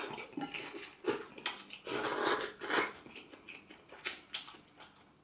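A person slurping hot pot noodles and broth from a small bowl: a string of short slurps, a longer one about two seconds in, with chewing between.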